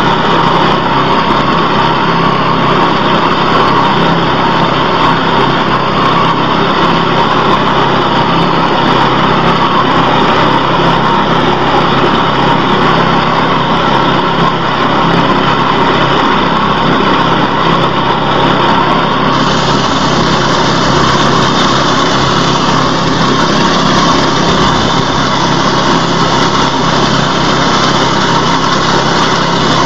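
Small engine of a wheat and rice reaper running steadily and loudly. A brighter hiss comes in suddenly about two-thirds of the way through and stays.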